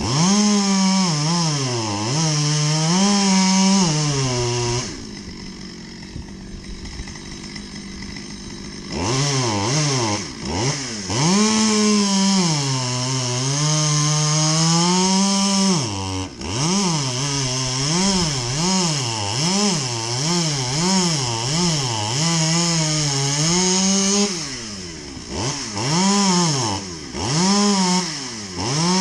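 Two-stroke chainsaw running and cutting, its engine pitch rising and falling over and over. About five seconds in it drops to a quieter idle for roughly four seconds, then revs again, with a quick run of short revs later on.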